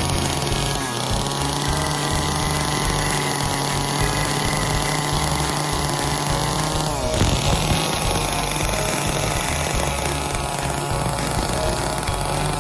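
Small chainsaw running while carving wood, its engine note dropping and picking back up about seven seconds in.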